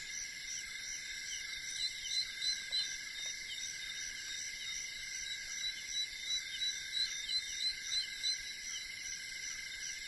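Tropical forest insect chorus, a steady high-pitched shrilling, with runs of short repeated chirps about three a second, one about two seconds in and a longer one from about halfway.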